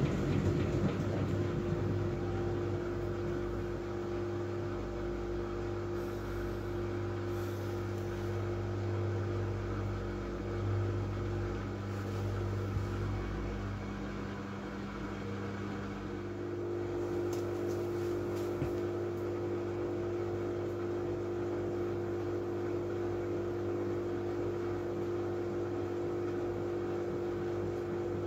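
Miele W433S washing machine running, a steady motor hum with the noise of the turning drum; its tone shifts slightly about halfway through.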